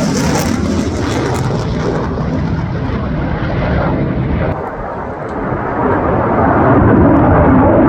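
Saab JAS 39 Gripen fighter's single turbofan jet engine passing overhead in a display: a loud continuous roar whose high hiss fades over the first couple of seconds. The roar dips briefly about five seconds in, then swells louder again near the end.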